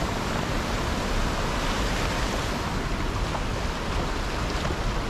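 Shallow mountain stream rushing over rocks and boulders: a steady, even rush of water.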